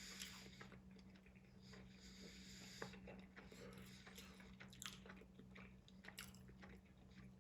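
Faint close-up chewing of food, with soft scattered mouth clicks, over a low steady hum.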